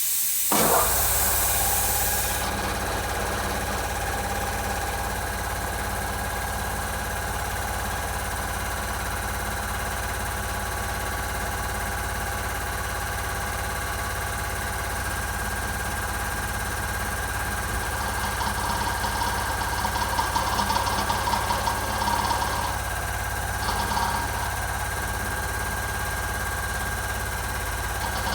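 Reciprocating air compressor starting up about half a second in and then running steadily with a low hum, while an air hiss fades out in the first two seconds. An uneven rattle grows louder around two-thirds of the way through: the abnormal noise reported as an early fault on this compressor.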